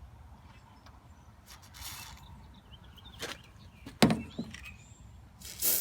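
Hands working grease into a truck's hood hinge: short hissing and scraping bursts, a click, and a sharp metallic knock about four seconds in.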